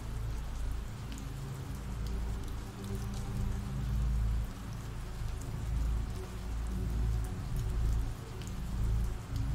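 Steady rain falling, with scattered drop ticks, under low sustained notes of dark ambient music that shift every few seconds.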